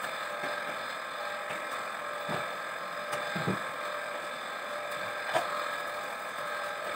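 A steady mechanical hum, with a few faint knocks and clinks as kitchen utensils and containers are moved on the shelves; the sharpest knock comes about five seconds in.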